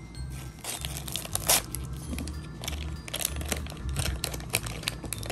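Foil blind-bag wrapper being torn open and crinkled by hand: an irregular run of sharp crackles and rustles, the loudest about one and a half seconds in.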